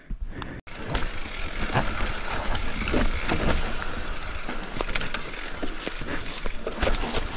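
Mountain bike riding down a dry dirt singletrack: knobby tyres crunching and crackling over dry leaves and bamboo debris, with many quick clicks and rattles from the bike over the bumps.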